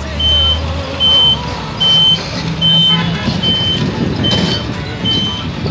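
Vehicle reversing alarm beeping, a single high tone repeating about every 0.8 seconds, seven beeps in all, over a low engine hum and a steady hiss.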